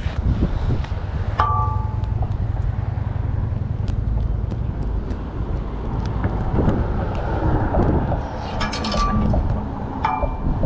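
Steady low rumble of wind on the microphone and traffic on a road bridge. A few short metallic clinks ring out: one about a second in and two more near the end.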